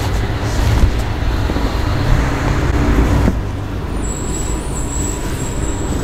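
A steady low rumble, like traffic or a machine in the background, with a few soft handling sounds as cotton fabric is folded and smoothed by hand. A faint thin high whine comes in about two-thirds of the way through.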